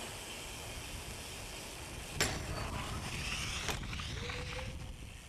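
BMX bike on concrete over a steady low rumble, with a sharp loud clack about two seconds in as it comes down off a concrete ledge, and a second knock about a second and a half later.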